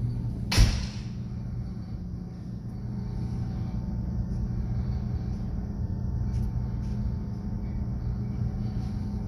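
Steady low drone of an offshore rig's machinery and ventilation, made of several low steady tones. A single sharp knock comes about half a second in.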